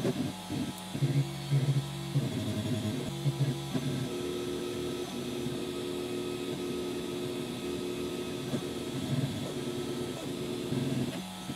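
3D printer's stepper motors whining as the print head and bed move during an ABS print: choppy stop-start tones for the first few seconds, steadier held tones for about six seconds on longer moves, then choppy again near the end.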